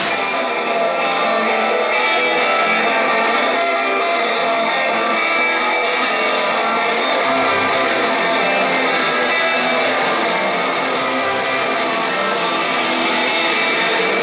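A live rock band playing an instrumental passage, with electric guitars to the fore. About seven seconds in, a bright hiss in the high end comes back in over the guitars.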